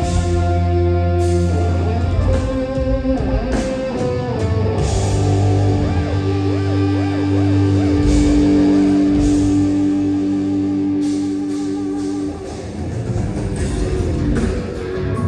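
Rock music led by guitar, with held notes over a steady low bass and drums.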